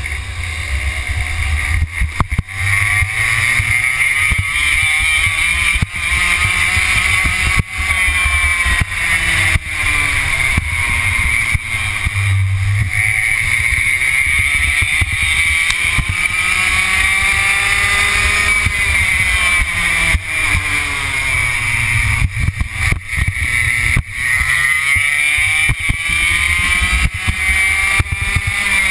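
Racing kart's two-stroke engine heard from on board, its pitch climbing and dropping again and again as it accelerates and slows through a lap.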